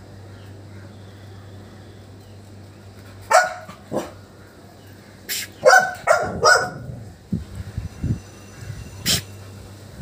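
Labrador puppy barking, a single bark twice and then three quick barks, at short sharp hisses coming from the clutter; the hisses come about three, five and nine seconds in.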